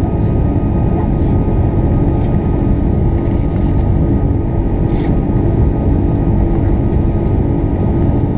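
Cabin noise of an Airbus A340-600 climbing after takeoff: the steady roar of its Rolls-Royce Trent 500 turbofans and the rush of air, heard inside the cabin from a window seat over the wing, with a steady hum in it. A few faint short ticks come through around the middle.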